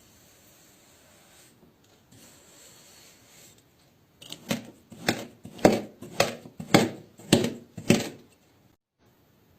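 A series of about seven sharp knocks, roughly two a second, starting about four seconds in and stopping about four seconds later, after a stretch of faint background noise.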